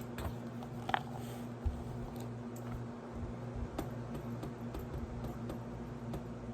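Washing machine running with a steady low hum, with scattered light clicks and taps over it and a short high blip about a second in.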